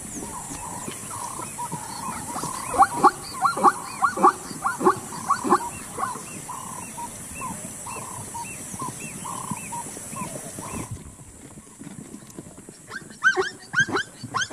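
Plains zebras calling: a series of sharp, repeated barking calls, densest about three to six seconds in and fainter after, with a new run of barks starting near the end. A steady high hiss stops about eleven seconds in.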